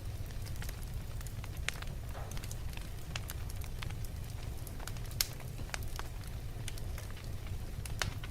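Fire burning in a fireplace: a steady low rumble with scattered crackles and sharp pops, the loudest pop about five seconds in and another near the end.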